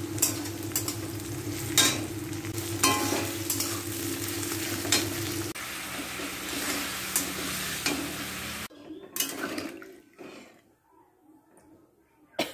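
Food frying and sizzling in an aluminium karai while a metal spatula stirs, scraping and knocking against the pan about once a second. The frying sound cuts off abruptly about two-thirds of the way through, leaving near quiet with a few faint knocks.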